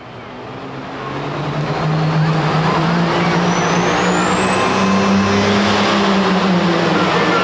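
Light limited super stock pulling tractor's engine at full throttle as it pulls down the dirt track. It grows loud over about two seconds and then holds steady at high revs, with a high whistle climbing steadily in pitch.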